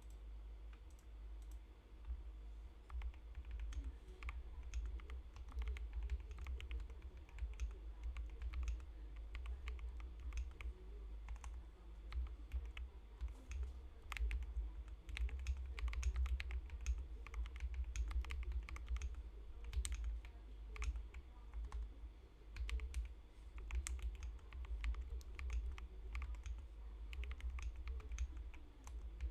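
Continuous typing on a split mechanical keyboard with Akko CS Ocean Blue switches: quick, irregular keystroke clicks, several a second, over a low rumble.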